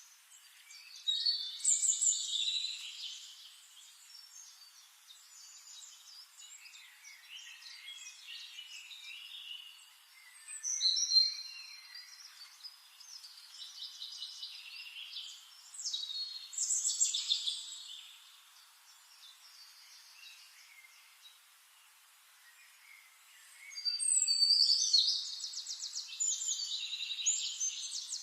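Songbirds singing in bursts of chirps and trills a few seconds long, with quieter stretches between. The loudest bursts come about a second in, around the middle, and near the end.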